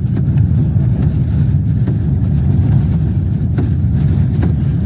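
Tornado winds roaring against the Dominator 3 armored storm-chasing vehicle, a steady, loud, low roar like a freight train, with a few sharp ticks of debris striking the vehicle.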